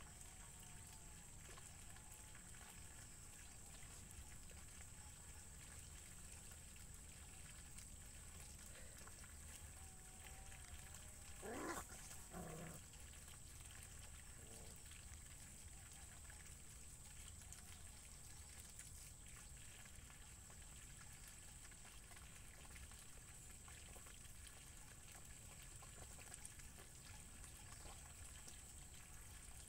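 Near-silent ambience with a faint steady hiss. Partway through comes one short puppy yelp rising in pitch, with a softer second cry just after.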